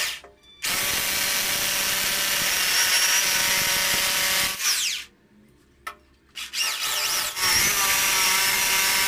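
Corded electric drill with a 14 mm bit boring into a ceramic-tiled wall, its motor whining steadily as the bit grinds. It runs for about four seconds, stops briefly about five seconds in, then starts again for the second hole.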